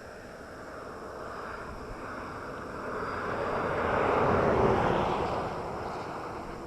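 A vehicle passing on the road, its rushing noise growing louder to a peak about four to five seconds in, then fading away.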